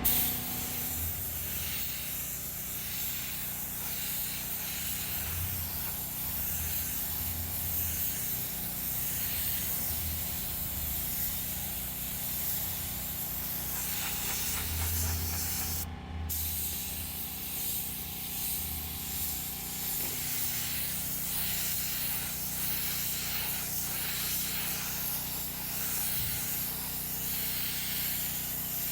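Automotive paint spray gun hissing steadily as clear coat is sprayed onto a repaired bumper, with one brief break about sixteen seconds in.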